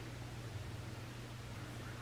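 Steady low hiss with a faint hum: an electric room fan running on its low setting.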